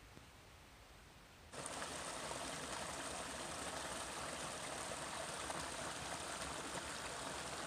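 A small mountain brook trickling down over mossy rocks, a steady rush of running water that starts suddenly about a second and a half in; before that only faint background quiet.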